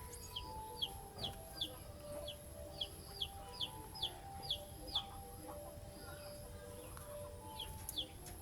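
A bird calling a quick series of short, high, down-slurred notes, about two to three a second, which stops for a couple of seconds and resumes with two notes near the end, over soft background music.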